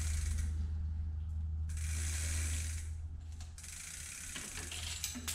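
Bicycle rear freehub pawls clicking in a fast ratcheting buzz as the rear wheel and cassette are turned, in a few spells with short pauses.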